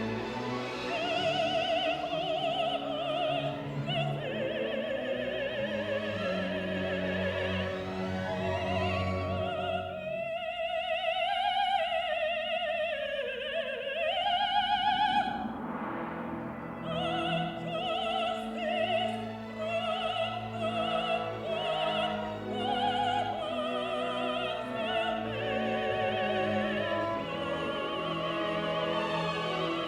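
Symphony orchestra playing with a contralto soloist singing over it; about a third of the way in, a held, wavering vocal line slides down before the full orchestra resumes.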